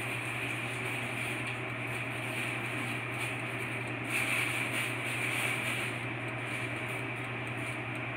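Steady low hum and hiss of a running appliance, growing slightly louder and higher-pitched about four seconds in.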